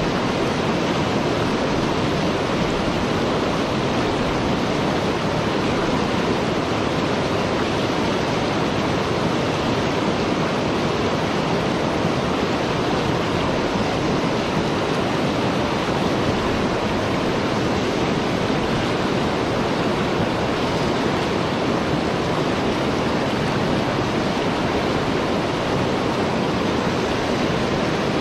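Fast, shallow river water rushing steadily over a stony riffle close to the microphone.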